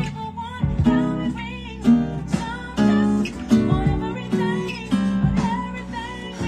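Acoustic guitar strumming chords in a song's instrumental passage, with a chord struck about every half second to second.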